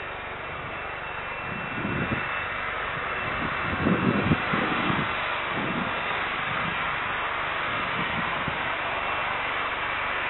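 Boeing 747-400F freighter's four jet engines running as it taxis: a steady rushing roar that builds slightly over the first few seconds. Irregular low rumbles sound underneath, the strongest about four seconds in.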